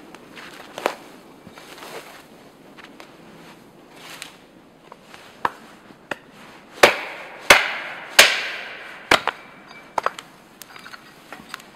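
Russian-pattern axe chopping branches off a fallen spruce: a series of sharp chops at uneven intervals, the loudest three coming in quick succession a little past halfway.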